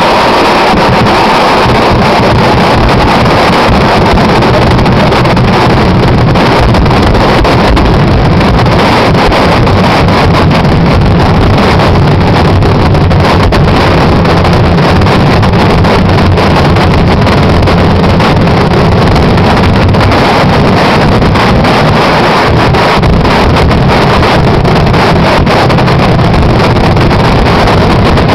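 Kerala temple fireworks (vedikkettu): an unbroken barrage of firecrackers and aerial shells, countless bangs merging into one continuous din. It is loud enough to push the recording to its limit throughout.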